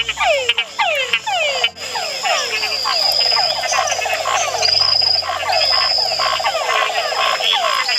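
A chorus of tree frogs calling: many short calls, each falling in pitch, repeated several times a second. A fast pulsing trill joins in about three seconds in.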